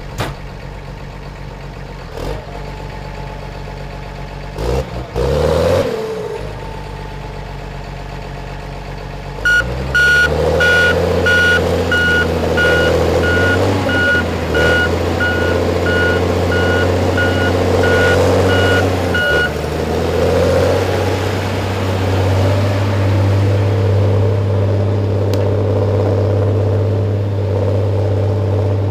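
Heavy logging machine's engine running steadily, revving up briefly around five seconds in and picking up again about nine seconds in. Its reversing alarm beeps about twice a second for about ten seconds, then stops while the engine keeps running.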